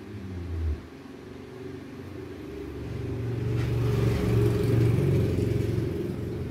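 A low rumble with a steady hum under it, swelling about three seconds in and easing toward the end.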